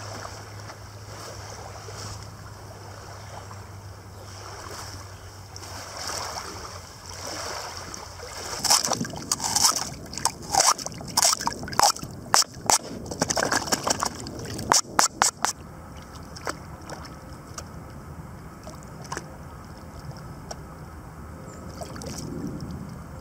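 A magnet-fishing magnet being hauled up out of the river beside a kayak: a quick run of sharp splashes, drips and knocks lasting several seconds, then quieter water.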